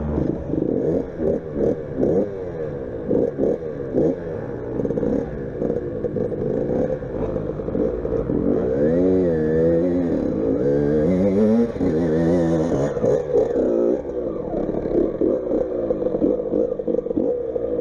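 Child's motocross bike engine revving up and down over and over as the throttle is opened and shut, its pitch climbing and dropping every second or so.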